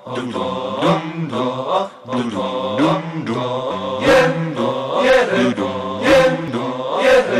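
TV programme opening theme music: a chant-like melodic line over a steady low drone, with a short break about two seconds in.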